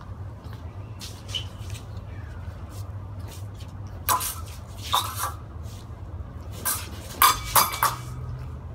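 Steel practice swords clashing: sharp, ringing blade contacts, one about four seconds in, a pair about a second later, then a quick run of three or four near the end, over a steady low hum.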